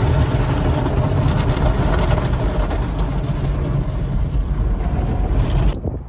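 Car wash heard from inside the car: water spray and foam-laden cloth brushes scrubbing over the windshield and body, with a steady low rumble underneath. It cuts off suddenly near the end.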